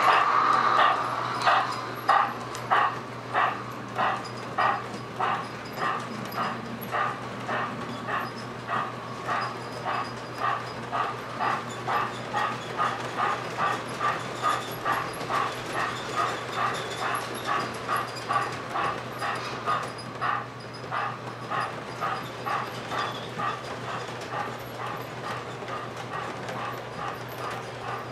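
Wheels of O gauge three-rail model freight cars clacking over a rail joint, truck after truck, in an even rhythm of about two clacks a second. The clacks quicken and grow fainter as the train goes on, over a steady low hum.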